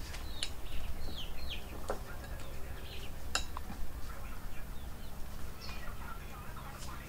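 A metal spoon clinking and scraping against a plate a few times while eating, with birds chirping in the background: a few short falling chirps about a second in.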